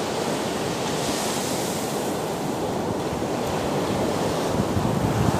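Sea surf on a beach: a steady rush of waves, with wind buffeting the microphone.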